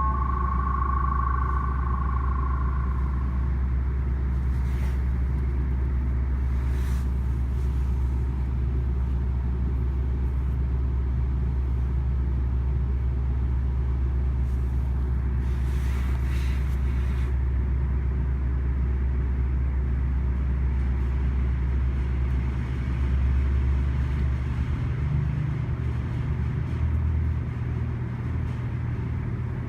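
Diesel locomotive of a GO Transit commuter train running with a steady low rumble, its engine note shifting about 23 seconds in. A high steady tone fades out in the first couple of seconds.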